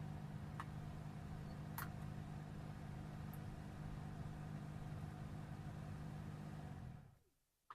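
A steady low mechanical hum, like a motor or fan running, with a few faint clicks; it stops abruptly near the end.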